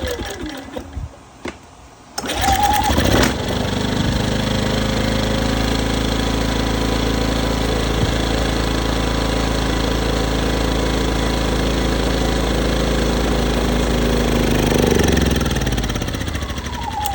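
Westinghouse 2500 inverter generator engine catching about two seconds in and running steadily on a shot of starter fluid, then swelling briefly and winding down as it dies near the end. It runs only on starter fluid and not on its gas, which the owner puts down to a clogged fuel filter or a bad carburetor.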